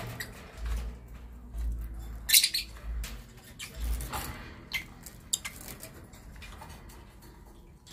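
Caged Fischer's lovebirds giving short, high squeaky chirps now and then, the loudest about two and a half seconds in, with light clicks and a brief flutter of wings as one flies across the cage.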